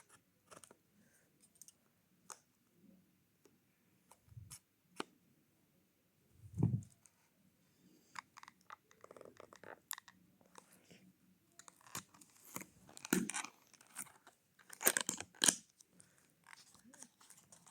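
Packaging of a boxed model bus being handled and opened: scattered clicks, crinkles and tearing of cardboard and plastic, busier near the end. A dull thump comes about six and a half seconds in, with a softer one a couple of seconds earlier.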